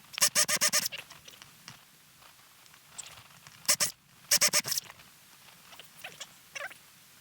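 Power drill run in three short, pulsing bursts as it drills through a small part: one at the start, a brief one a little before the middle, and another just after. A few faint clicks follow near the end.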